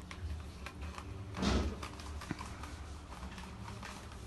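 Freshly activated slime being stirred and handled, with faint sticky clicks and one louder bump about a second and a half in.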